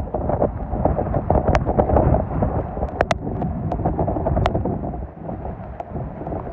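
Hurricane-force wind buffeting the phone's microphone in loud, gusting rumbles, with a few sharp clicks.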